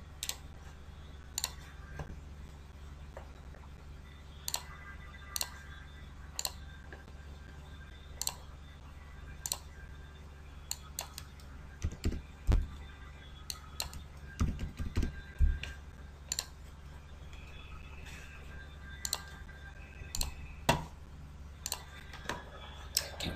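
Scattered clicks of a computer mouse and keyboard, irregularly spaced with a quicker run in the middle, over a low steady hum.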